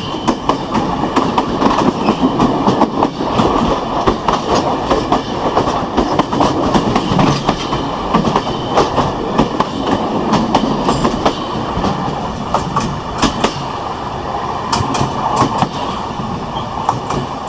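Train running along the track: a steady rumble of railway wheels with the clickety-clack of wheels over rail joints and many irregular clicks and knocks throughout.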